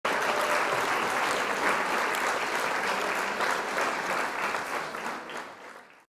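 A group of people applauding, steady dense clapping that fades out over the last second.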